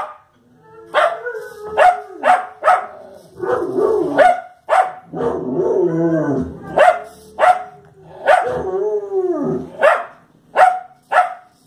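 Wire fox terrier barking at the television: a run of short, sharp barks, about a dozen in all, broken by a few longer, drawn-out barks that fall in pitch.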